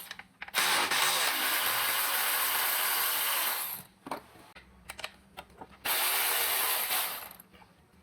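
Handheld power tool running in two bursts, one of about three seconds and a shorter one of about a second and a half, with a few sharp clicks of tool and metal between them.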